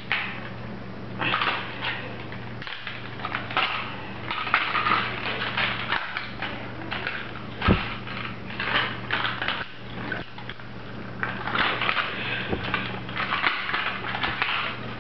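Plastic drone frame creaking, clicking and cracking in irregular bursts as it is twisted and pulled apart by hand, with one sharper crack about eight seconds in.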